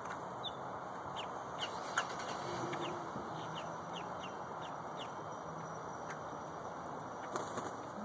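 Grackles giving a string of short, sharp chip calls, mostly in the first five seconds, over a steady background noise.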